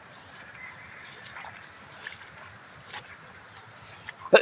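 Footsteps swishing through wet grass over a steady high drone of insects; a person coughs loudly right at the end.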